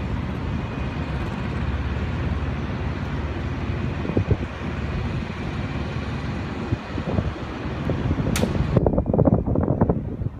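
Steady low rumble of a train running. In the last couple of seconds come rapid, irregular knocks, like wheels clattering over rail joints and points.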